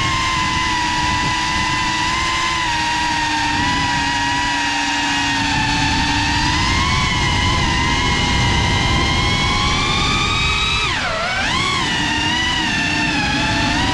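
FPV quadcopter's brushless motors whining, with a high pitch that wavers up and down as the throttle changes; about eleven seconds in the pitch drops sharply and swings back up. Wind rushes over the onboard GoPro's microphone underneath.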